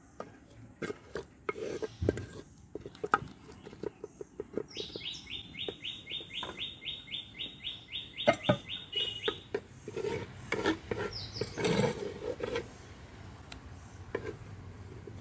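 Scattered light clicks and knocks, and partway through a bird sings a rapid, even trill lasting about five seconds, with a short chirp a little later.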